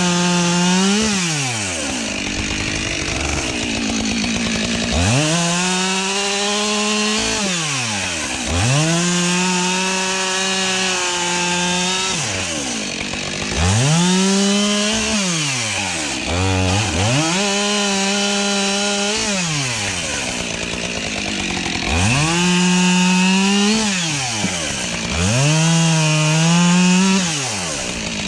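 ECHO CS-7310P two-stroke chainsaw cutting wood at full throttle. The engine note repeatedly drops sharply toward idle and revs straight back up as the throttle is let off and squeezed again between cuts.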